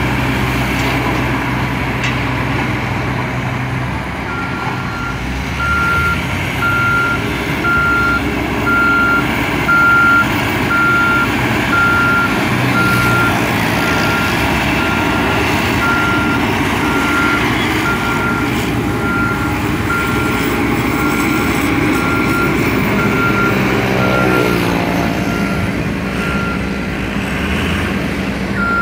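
Diesel construction machine running with its reversing alarm beeping, a single high tone about once a second. The alarm starts a few seconds in and stops about two-thirds of the way through as the engine note drops, then starts again near the end.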